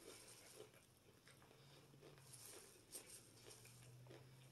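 Near silence: faint chewing of a person eating, with small soft clicks now and then and a faint steady low hum.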